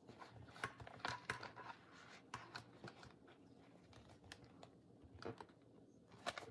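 Light clicks, taps and rustles of paper and card as a hand-sewn junk journal is handled and its pages opened, in scattered clusters.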